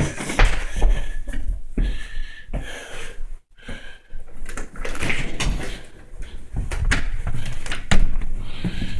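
A door being opened and shut, with footsteps and knocks, and a sharp bang about eight seconds in.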